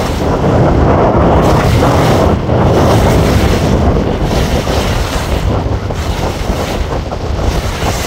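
Wind buffeting the microphone over the rush and slap of choppy water against a small open boat under way.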